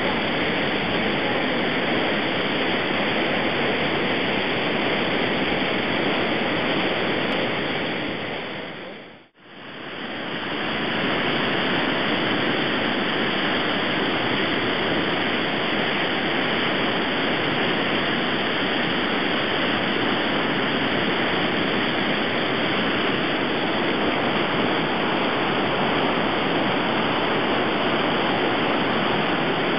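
The Secchia river in flood, rushing through and over the concrete regulating weir of its flood-expansion basins as a steady roar of turbulent white water. The sound fades out briefly and comes back about nine seconds in.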